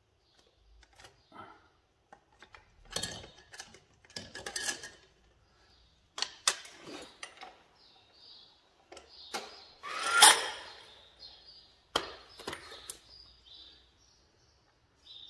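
Hand tools knocking and clinking against metal parts while the clutch of a 1980 Harley-Davidson Shovelhead is stripped out: scattered taps and clanks, the loudest a sharp ringing clank a little after ten seconds in.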